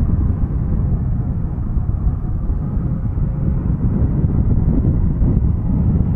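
Piper PA-46-500TP Meridian's Pratt & Whitney PT6A turboprop running as the aircraft rolls along the runway: a steady low rumble with a faint engine tone above it.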